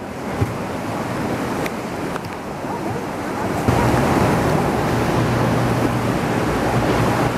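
Sea water sloshing and surging inside a sea cave, with wind buffeting the microphone. About halfway through it turns louder, with a steady low hum of the tour boat's engine underneath.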